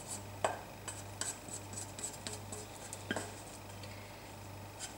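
Spatula stirring a thick, sticky cold porcelain dough of glue and cornstarch in a small nonstick saucepan: irregular soft clicks and scrapes against the pan, with two louder knocks about half a second and three seconds in, over a faint steady hum. The dough is close to cooked and coming away from the pan's sides.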